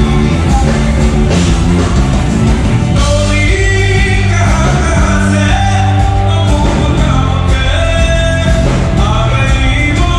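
Live pop-rock band playing loudly: a male singer sings into a microphone over drums, electric guitar, bass guitar and keyboard, with a heavy bass.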